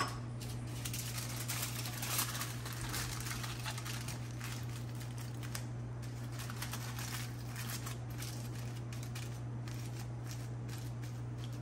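Aluminium foil crinkling and rustling in irregular little crackles as it is folded by hand around a potato, over a steady low hum.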